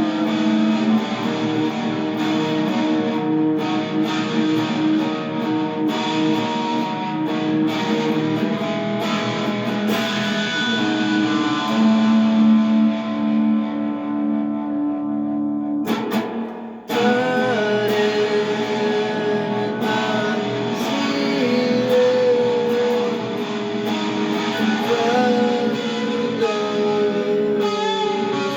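Electric guitar playing sustained, ringing chords, with one sung word near the start. A little past halfway the guitar briefly drops out, then comes back in.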